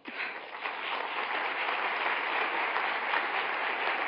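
Audience applause breaks out, swells within the first second and then holds steady.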